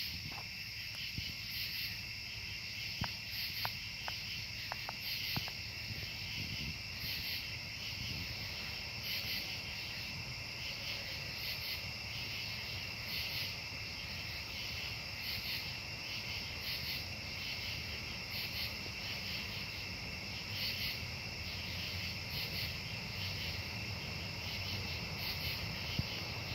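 Night insect chorus: crickets trilling steadily, with a higher pulsing call repeating about every two seconds. A low steady rumble runs underneath.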